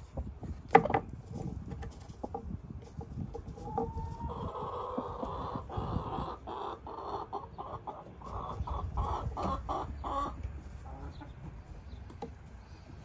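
Bantam hen calling: a long drawn-out note that rises at its start about four seconds in, running straight into a string of short rhythmic clucks, about three a second, that stops about ten seconds in. A single sharp knock sounds about a second in.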